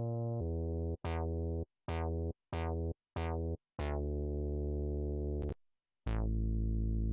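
Mini-G3 software synthesizer playing a bass preset: a run of short bass notes and one longer one, each opening with a quick bright falling zap of its filter sweep. After a brief gap about five and a half seconds in, a held note from a different bass patch starts.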